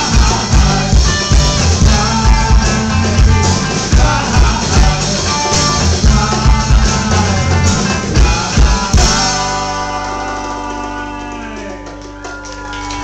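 A rock band playing live with drums, bass and guitar. About nine seconds in, the beat stops and the band holds a final chord that rings out and fades.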